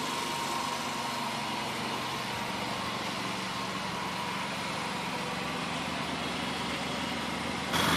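Machinery running steadily with an even mechanical drone that jumps abruptly louder near the end.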